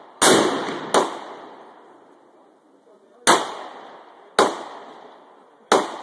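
Barrett .50 BMG semi-automatic rifle firing five shots: two close together at the start, then a pause, then three more about a second apart. Each shot trails off in a long echo.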